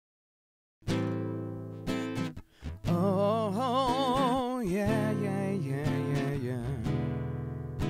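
Music begins suddenly about a second in: strummed acoustic guitar chords with a wavering melody over them.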